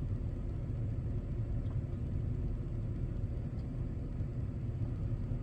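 Steady low rumble with no speech, even throughout.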